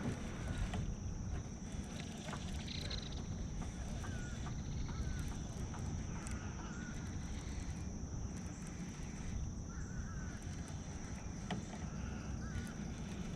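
Outdoor river ambience: a steady low rushing of moving water and wind, with a constant high insect drone and short warbling bird chirps every few seconds.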